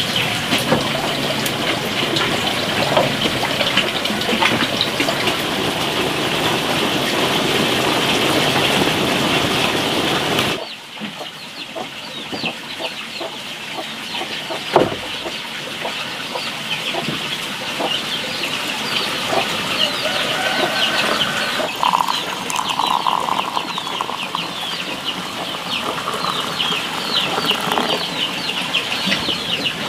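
A steady rushing noise that cuts off about ten seconds in, followed by farmyard chickens clucking amid many short, high chirps. There is a single sharp knock a few seconds after the cut.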